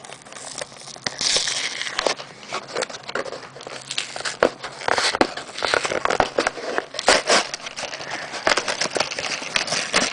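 Plastic blister packaging on a cardboard card being pried and torn open by hand: irregular crinkling and crackling with many sharp clicks of the plastic.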